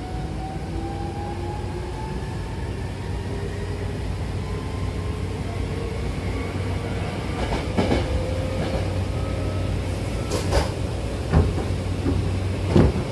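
Hankyu electric train heard from inside the carriage, pulling away and speeding up: the traction motors whine, rising slowly in pitch over a steady low hum. In the second half the wheels knock sharply over rail joints four times.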